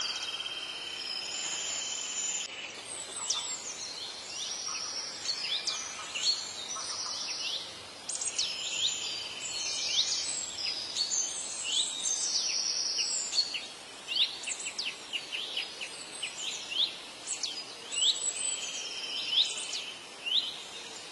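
Forest ambience: birds giving many quick, high, downward-sliding chirps, over stretches of steady high buzzing trills from insects or birds.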